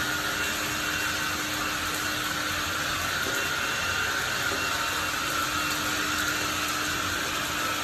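Black & Decker 14.4 V lithium cordless vacuum running steadily while vacuuming the floor: a continuous rush of air with a steady high motor whine.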